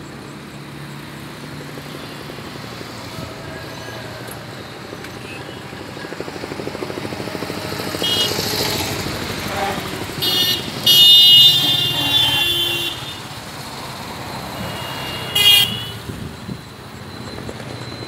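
Road traffic running steadily, with a vehicle passing about eight seconds in and horns sounding: two short toots near ten seconds, a long blast of about two seconds, and another short toot near fifteen and a half seconds.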